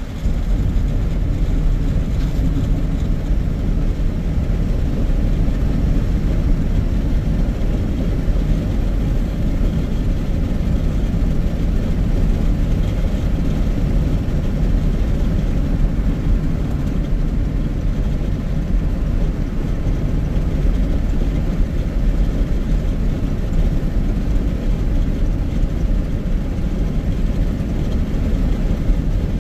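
Car driving at steady speed: a continuous low rumble of road and engine noise.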